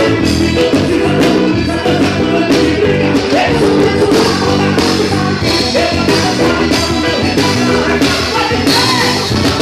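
Live band playing praise music: drum kit and electronic keyboard with a steady beat, loud and dense.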